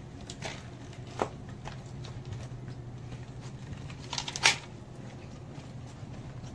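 Steady low hum with a few scattered sharp clicks and knocks. The loudest is a quick cluster of them about four and a half seconds in.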